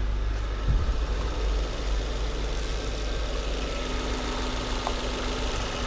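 Volvo S40 petrol engine idling steadily, with a short low knock just under a second in. The engine is running rough from an air leak in the intake, which the mechanic takes for a vacuum leak.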